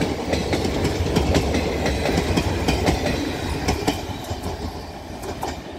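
The coaches of a passenger express train rolling past, with a low rumble and the wheels clicking over rail joints. The sound fades away over the last couple of seconds.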